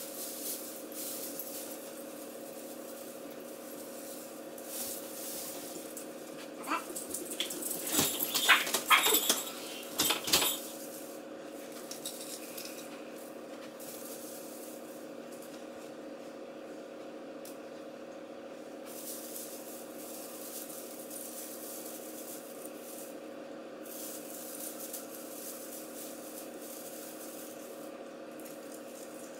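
A dog barking in a quick cluster of sharp barks about a quarter to a third of the way in, over a steady low household hum.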